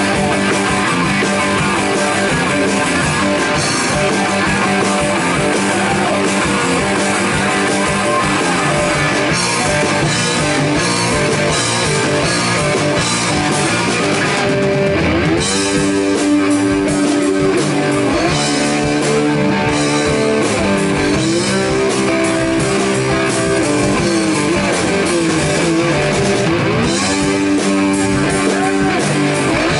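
Blues-rock band playing live and loud: electric guitar, bass guitar and drum kit, with no singing. About halfway through, the cymbals drop back and the guitar plays lead lines with bending notes.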